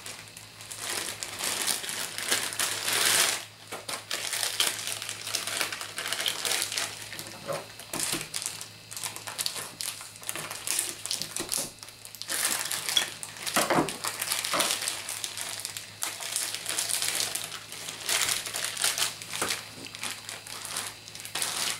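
Plastic cheese packaging and a zip-top plastic bag crinkling and rustling in the hands as the cheese is unwrapped. A faint steady low hum runs underneath.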